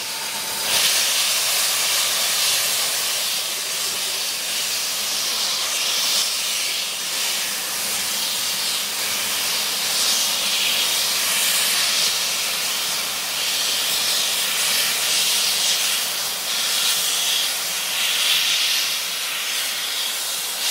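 Steam hissing loudly and steadily from the open cylinder drain cocks of GWR small prairie tank engine No. 5526, swelling and easing as the locomotive stands and then starts to draw its train forward.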